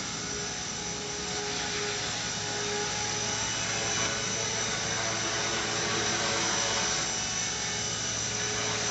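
Electric motors and spinning rotor blades of a V120D02 radio-controlled micro helicopter whirring steadily in flight, with a constant high-pitched motor whine.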